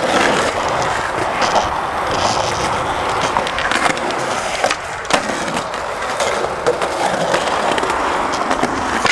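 Skateboard wheels rolling on rough concrete, a steady loud grinding roll, with a few sharp clacks of the board scattered through it.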